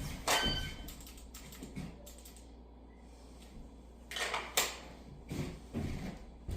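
A shot timer's par beep about a third of a second in, marking a 0.80 s par after its start beep, over clicks and rustles of a pistol being drawn in dry-fire practice. More irregular clicks and brief rustles of gear and movement follow, loudest between about four and six seconds in.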